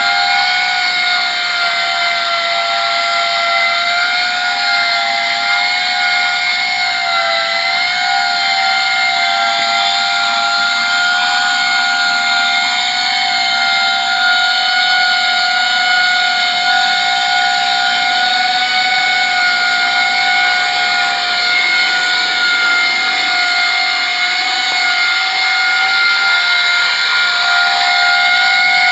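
Homemade ducted coaxial copter in flight: its two counter-rotating propellers give a loud, steady whine made of two close tones that waver a little in pitch now and then.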